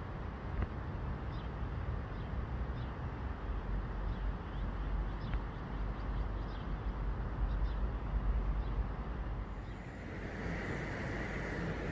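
Outdoor ambience by a stream: a steady low rumble with faint, scattered short bird chirps. About ten seconds in, the sound changes and a steady hiss comes in.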